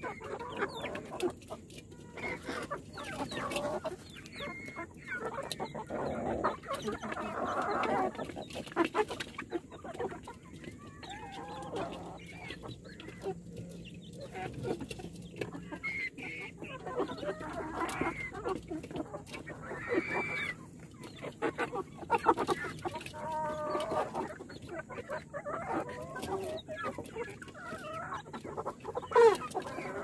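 A flock of chickens, mostly Kadaknath, calling in many short overlapping calls, with scattered sharp taps between them.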